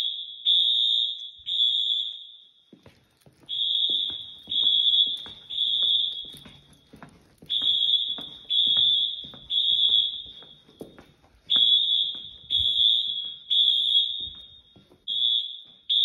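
High-pitched Wheelock fire alarm horns sounding in the temporal-three evacuation pattern: three long blasts, then a pause, repeating about every four seconds. This is the building's alarm system in full alarm during a fire alarm test.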